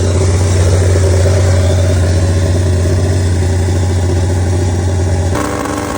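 Motorcycle engine running steadily at a constant pitch, with a strong low hum. The note changes abruptly about five seconds in.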